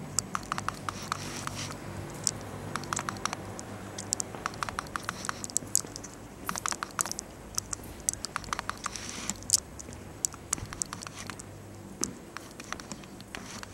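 Quick, light clicks and taps in irregular clusters, over a faint steady low hum.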